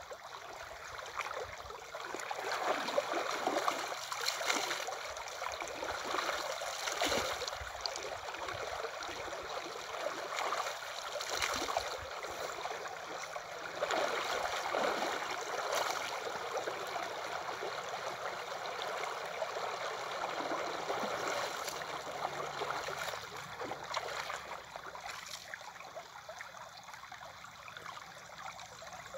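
River water flowing and trickling, with irregular splashes of water scooped up by hand to wash the face. The splashing grows louder about two seconds in and dies down near the end.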